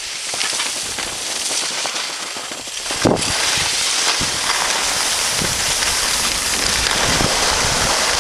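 Wind rushing over a camcorder microphone, mixed with skis hissing on packed snow, as the person filming skis downhill. A sharp knock comes about three seconds in, and after it the rush is louder and steady.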